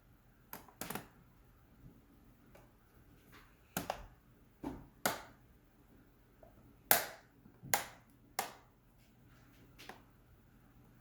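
Irregular sharp plastic clicks and knocks of an Alienware Area-51m R2 laptop's back cover being fitted back on, with the loudest knock about seven seconds in.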